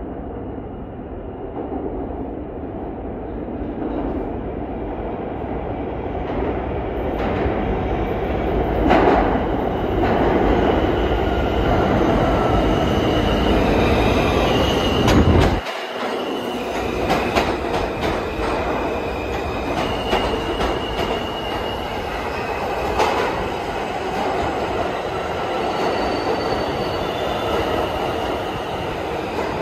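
An R160 New York City Subway train running on the tracks. Its rumble builds over the first several seconds, with high wheel squeals coming and going and clicks over the rail joints.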